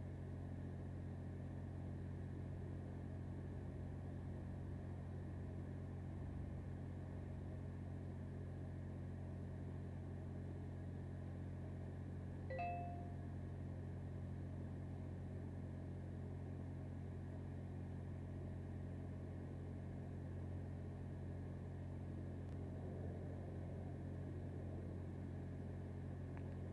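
Steady low hum of an idling engine, with one short chirp about halfway through.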